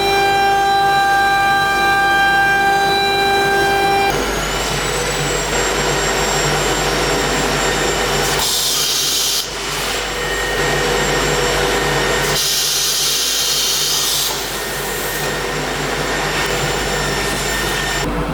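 CNC nesting router running: a steady multi-tone spindle whine that shifts about four seconds in to a higher whine rising in pitch. Loud hissing comes twice, about a second and then two seconds long, as the machine works.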